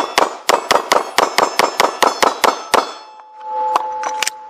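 Semi-automatic pistol fired in a fast string of about fourteen shots, roughly five a second, with steel plate targets clanging and ringing as they are hit. The string stops about three seconds in, followed by a steady ringing tone with a few light clicks.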